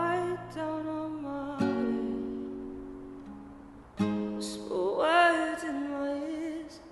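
Nylon-string acoustic guitar strummed, a chord ringing and fading away before a fresh chord is struck about four seconds in. A sung voice comes in over it with a long wavering note near the end.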